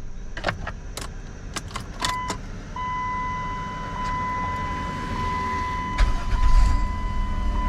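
Keys jangling and clicking in the ignition of a 2007 Chrysler Town & Country minivan, with a steady high-pitched dashboard warning chime coming on about three seconds in. About six seconds in, the freshly replaced starter cranks the engine and it starts: the new starter works.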